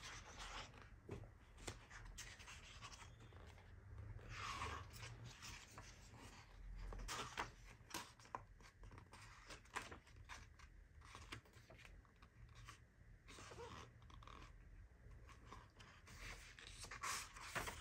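Faint paper sounds of a thick photobook's pages being turned by hand: soft swishes as pages sweep over, with light flicks and taps of paper between them.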